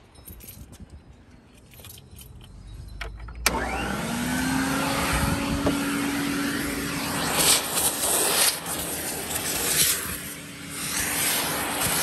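A 1969 Electrolux Model 1205 vacuum cleaner switched on about three and a half seconds in. Its motor spins up with a short rising whine and then runs steadily. The rush of air through the nozzle swells and fades several times as it works over the car seat.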